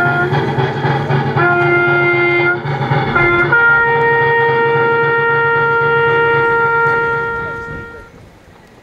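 Military bugle call in tribute to fallen soldiers: a few lower notes, then a long held higher note that fades out near the end.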